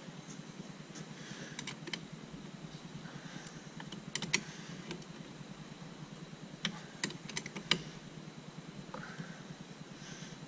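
Faint, scattered metallic clicks and taps of a hand wrench tightening the battery terminal nut, over a steady low hum.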